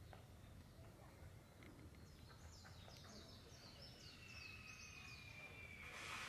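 Quiet outdoor ambience with a small bird's faint song, a quick run of short falling chirps between about two and five seconds in. A rushing noise swells near the end.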